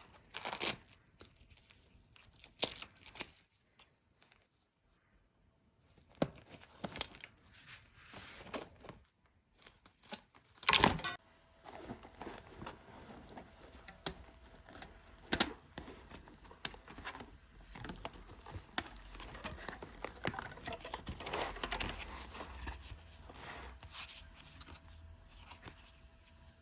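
Cycling gear and bags being handled close to the microphone: rustling, crinkling and tearing noises, with one short, loud rip about eleven seconds in.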